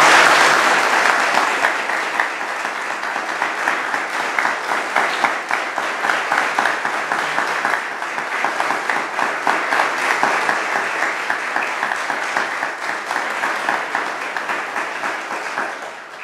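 Congregation applauding: a dense patter of many hands clapping that starts loud at once, holds, tapers off slowly and dies away near the end.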